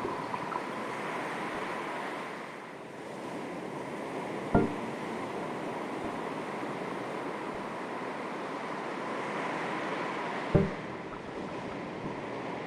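Calm sea waves lapping and washing steadily, easing off briefly and swelling again, with two sharp knocks about six seconds apart.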